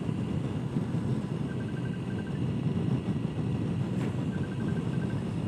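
Suzuki Burgman 650 maxi-scooter cruising at steady highway speed: its parallel-twin engine, with wind and road noise, makes a steady drone. A faint short trill of rapid ticks comes twice, about three seconds apart.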